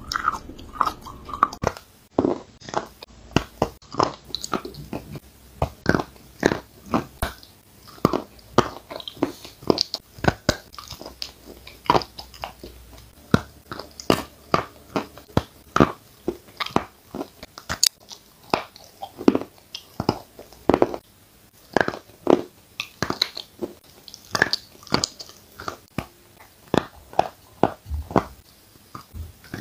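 A person biting and chewing lumps of chalk. Sharp, irregular crunches come about one or two a second, with softer chewing between them.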